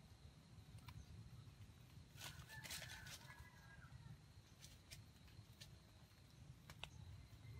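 Quiet forest ambience with a faint steady high insect-like tone. About two to three seconds in comes a short bird call, and faint rustles and clicks of dry leaf litter are scattered through the rest.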